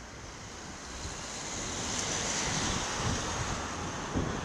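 Wind rushing over the microphone of a camera mounted on a moving bicycle, with low buffeting and road traffic underneath. The rush grows louder over the first two seconds, and there is a single short knock near the end.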